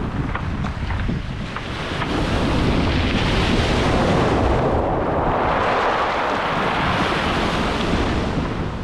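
Sea waves washing over a beach of rounded stones, the stones clicking and rattling against one another as the water drags them. The clicks stand out in the first second or so, then an incoming wave rushes up and fills the rest, with wind buffeting the microphone.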